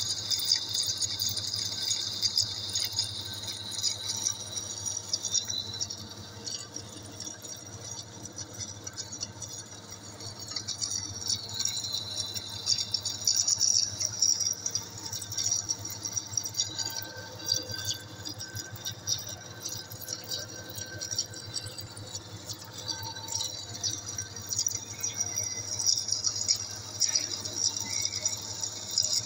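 Metal lathe running with a long steel shaft turning in it: a steady low hum from the machine under a continuous high, crackling rattle.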